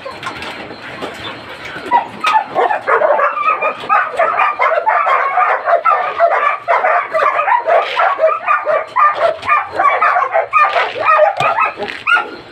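Several kennel dogs barking, yipping and whining over one another, excited at feeding time; the din gets louder about two seconds in.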